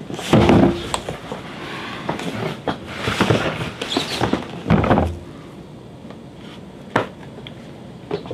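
Cardboard boxes handled and set down on a table. A heavy thud with rustling comes near the start, then cardboard scraping and shuffling, another low thud about five seconds in, and a single sharp knock near the end.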